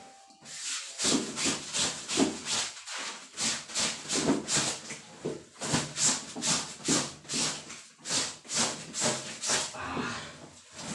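Wet clothes being scrubbed by hand, fabric rubbed against fabric in quick rhythmic swishing strokes, about two to three a second.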